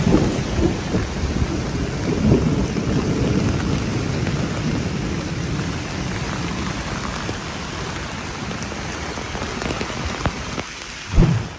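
Heavy rain pouring down hard, with low thunder rumbling through the first few seconds. A single loud thump near the end.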